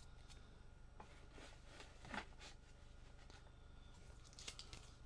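Faint, brief rustles and slides of trading cards being handled, a few soft strokes near the middle and another near the end, over a low steady hum.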